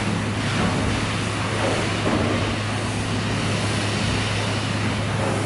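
Butterley low-pressure condensing beam engine running: a steady low hum under a noisy mechanical wash, with recurring pulses of sound a second or so apart as the engine works.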